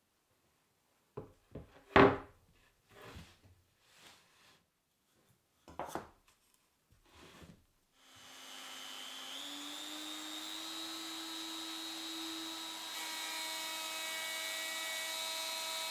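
A plywood panel set down on a workbench with a few wooden knocks, the loudest about two seconds in. About eight seconds in a DeWalt compact router starts up, its whine rising briefly as it comes up to speed, then runs steadily.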